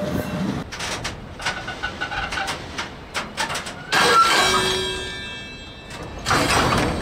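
A rail wagon's steel wheel rolls onto an object laid on the rail and crushes it about four seconds in: a sudden loud crunch followed by ringing. Scattered clicks come before it, and another loud crunch near the end as the wheel rolls on.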